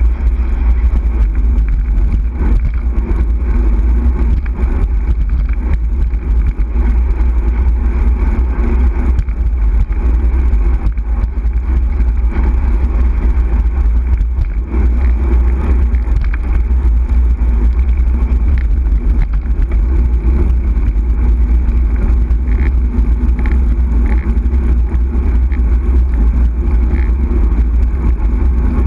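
Loud, steady low rumble of wind buffeting a bicycle-mounted camera's microphone, mixed with tyre and road noise as the bike rides along.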